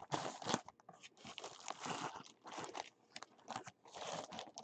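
Clear plastic bag crinkling in short, irregular rustles as a folded football jersey is handled and slid back into it.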